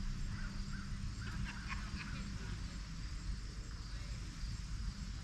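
Outdoor ambience: a steady low rumble, with a few short, faint animal calls in the first two seconds.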